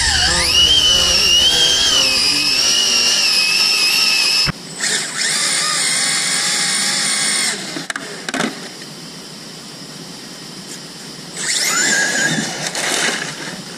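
High-pitched whine of 7-turn electric motors and drivetrains in Team Associated DR10 RC drag cars launching and running flat out. It rises in pitch at the launch, holds steady, breaks off about four and a half seconds in, and comes back until about seven and a half seconds in. Near the end another short, rising whine sounds as a car comes by again.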